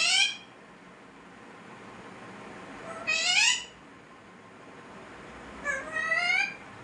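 Green pet parrot calling three times, each call a short cry that rises in pitch: one at the start, one about three seconds in, one near the end.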